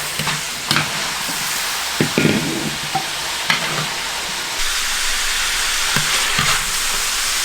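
Spicy chicken sizzling in a wok while a spatula scrapes and knocks against the pan, stirring the pieces and dishing them out at the end of the fry.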